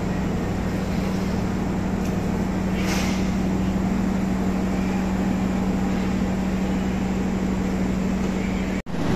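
Diesel passenger train standing at the platform and idling, a steady low hum that holds one pitch.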